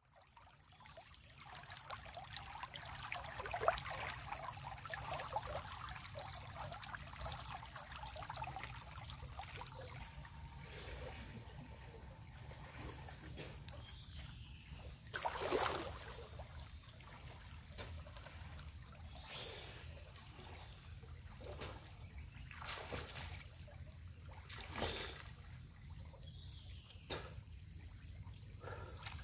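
Water sloshing and splashing as a person wades and swims through a muddy stream. There is a louder splash about halfway through and a few more later on, over a steady high-pitched hum.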